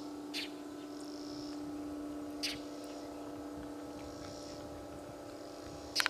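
Two short, sharp bird calls about two seconds apart over a steady low hum.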